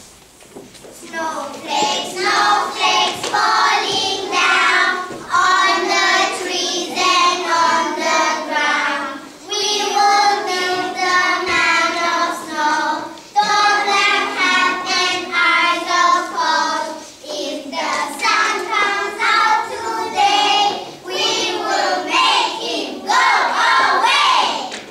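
A group of young schoolchildren singing a song together as a choir, starting about a second in.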